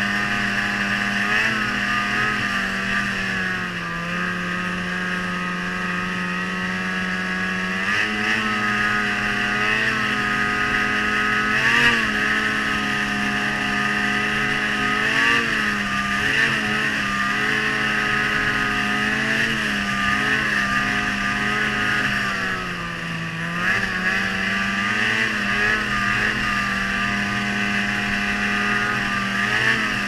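Ski-Doo Freeride 800 E-TEC two-stroke twin snowmobile engine with an MBRP aftermarket exhaust, running steadily at trail-cruising speed. Its pitch drops and holds lower for a few seconds, then comes back up, with small rises and dips as the throttle is worked.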